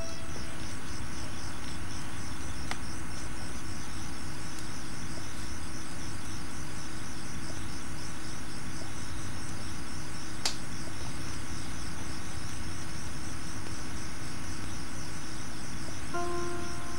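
A night chorus of crickets chirping steadily in an even, pulsing trill, with one sharp click about ten seconds in. Near the end a few held musical notes come in.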